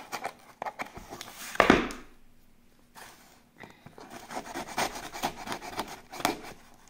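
Scissor blade scraping and slitting along the packing tape on a cardboard box, a quick run of scratchy strokes in the second half, with one louder sharp knock about one and a half seconds in.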